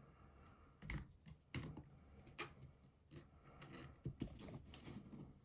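Faint, scattered clicks and light handling noises of small kit parts and a tool while the top joint of an RC buggy's shock absorber is being fastened.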